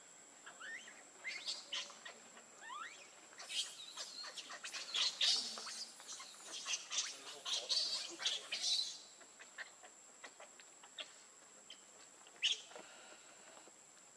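Baby pig-tailed macaque crying with rapid, shrill, rising squeals and screeches. The calls come thickest from about three to nine seconds in, with one more sharp squeal near the end.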